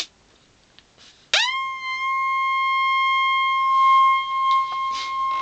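A switch click, then about a second later a loud steady high-pitched tone from an audio sine-wave generator played through a homebrew class B amplifier. It sweeps up in pitch as it starts, then holds with strong overtones: a nasty sound from an amplifier whose bias potentiometer has not yet been aligned.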